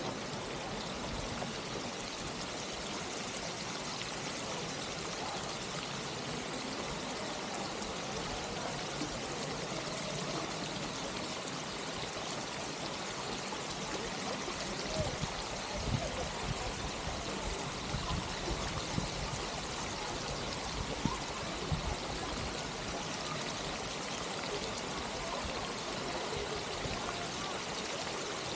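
Steady rush of flowing, splashing fountain water, with a few soft low bumps a little past halfway.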